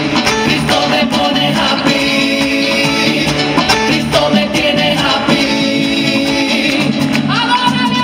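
Live music: a woman sings lead into a handheld microphone over a band with keyboard, holding a long note near the end.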